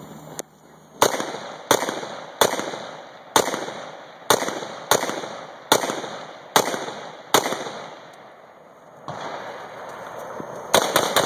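Smith & Wesson M&P15 AR-15 rifle in .223 firing aimed shots on a 3-gun stage: nine shots at a steady pace, a little under one a second, each trailing off. After a pause of a few seconds, three quick shots close together near the end.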